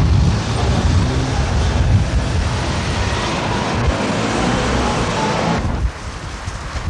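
Street traffic: cars driving past, with a heavy low rumble. It drops quieter about six seconds in.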